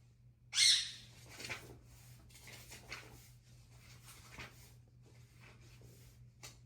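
Shih Tzu breathing noisily in its sleep: snoring breaths made of hissy, airy rasps, the loudest about half a second in, then softer ones every half second to a second. A steady low hum lies underneath.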